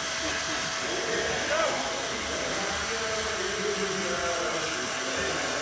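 Indistinct crowd chatter over a steady whirring hum.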